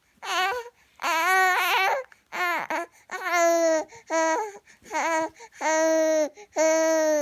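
Baby vocalising in a run of about eight short, pitched calls, trying out new noises; the early ones waver in pitch and the last two are held at a steady pitch, like long 'aah' notes.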